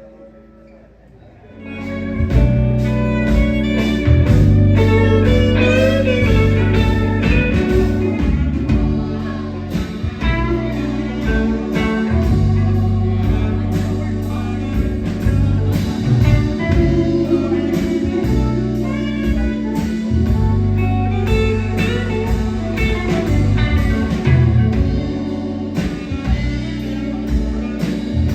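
A live band starting a guitar-led blues number about two seconds in, with steady bass and a regular beat, after a soft held tone.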